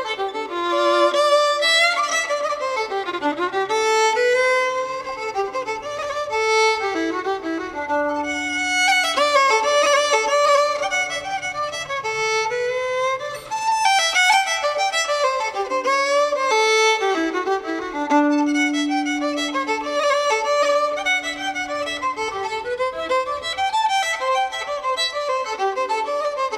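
Fiddle playing a lively melody of quick running notes, with other instruments underneath: Irish-style instrumental music.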